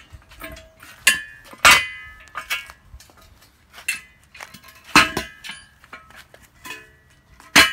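Steel engine-stand parts and hardware clanking and clinking as they are handled and set down, with lighter clicks in between. There are several sharp metallic clanks that ring briefly: a pair about one and two seconds in, the second the loudest, another about five seconds in, and one near the end.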